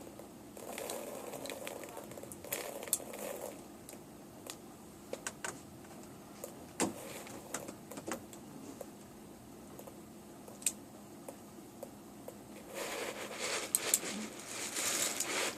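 Plastic airsoft BBs being pushed one by one into a pistol magazine, giving scattered light clicks with some handling rustle near the end.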